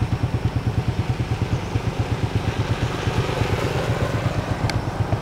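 Small motorcycle engine idling with an even, low putter of about seven beats a second. A short high click sounds near the end.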